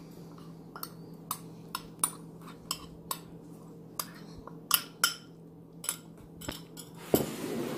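Metal spoon tapping and scraping against glass bowls, a string of sharp clinks, as ground roasted spices are knocked out of a small glass bowl into a larger one.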